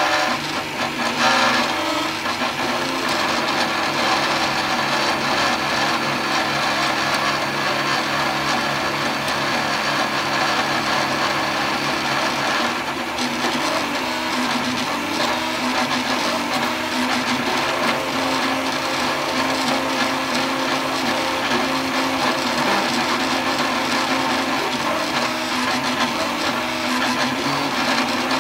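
3D printer running a print: its stepper motors whine in tones that shift as the print head changes moves, over a steady whir from the hotend's cooling fan.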